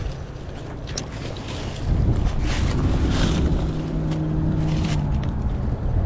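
Wind buffeting the microphone over river current, a low rumble that grows louder about two seconds in, with a few sharp clicks and a low steady hum in the middle.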